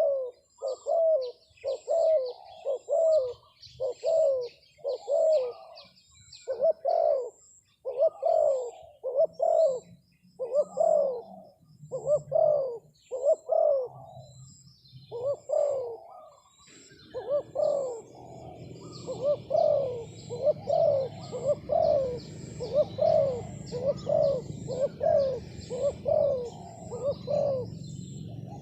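Spotted dove cooing over and over, a regular series of low notes about one and a half a second, with a short break just past halfway. After the break a steady low hum and faint high chirps of small birds run underneath.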